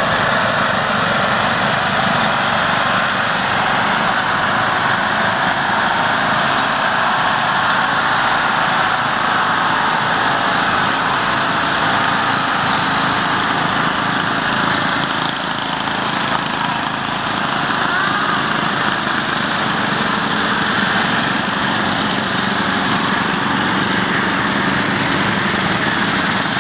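Several lawn mower engines running steadily together as they pass by.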